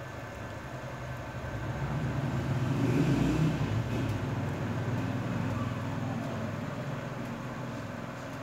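A motor vehicle passing by with a low rumble. It grows louder to a peak about three seconds in, then slowly fades away.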